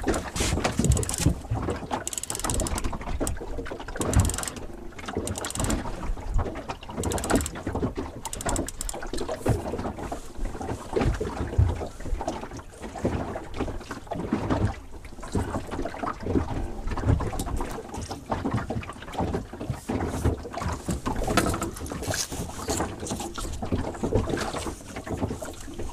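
A small wooden boat rocking in choppy water: waves slapping the hull and gusts of wind on the microphone, with irregular knocks and rattles throughout.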